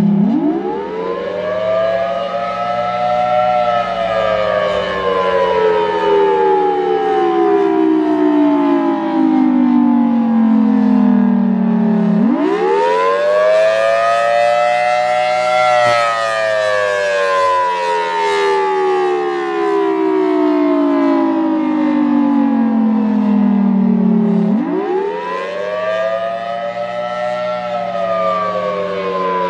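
Federal Signal Thunderbolt 1003 outdoor warning siren sounding the attack signal, really loud. Its pitch sweeps up quickly over about three seconds, then falls slowly for about eight, three times over, with a steady low hum underneath. The head rotates a bit slowly, so the loudness swells and dips.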